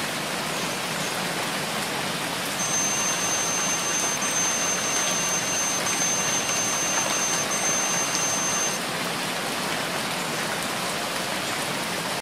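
Steady rain falling. About two and a half seconds in, a high-pitched electronic alarm tone sounds over it as four long beeps with very short breaks between them, stopping a few seconds before the end. The tone is the end-of-break timer alarm.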